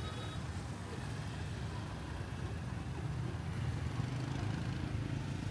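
Steady rumble of dense city road traffic, motorbike and car engines running together.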